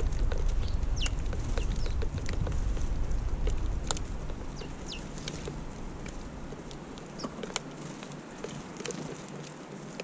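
House sparrows chirping at a seed feeder: many short, scattered chirps and ticks. A low wind rumble on the microphone fades out about halfway through.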